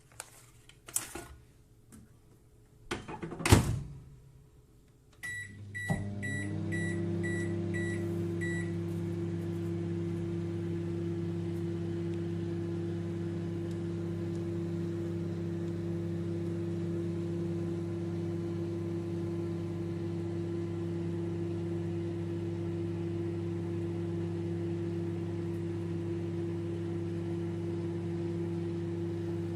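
A few clicks and a loud knock, then a run of short electronic beeps, after which a microwave oven starts and runs with a steady hum; one tone in the hum rises briefly as it comes up to speed and then holds. No popcorn is popping yet.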